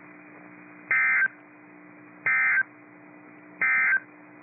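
Three short bursts of EAS SAME data tones, the end-of-message code that closes a weather radio alert. The bursts come about a second apart over a faint steady radio hum.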